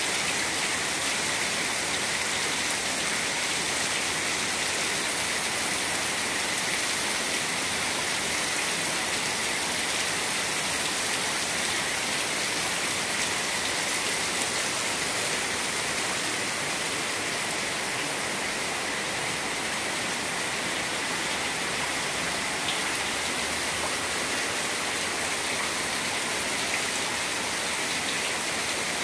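Heavy rain pouring onto flooded ground: a steady, even hiss of drops splashing into standing water.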